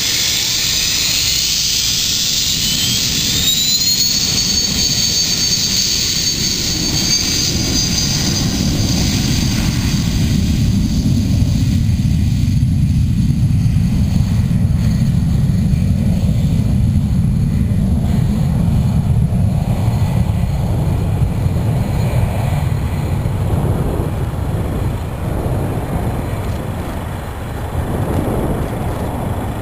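BAe 125 business jet taking off: a high jet whine climbs in pitch over the first few seconds as the engines spool up to takeoff power, then a loud, steady low rumble that eases near the end as the jet climbs away.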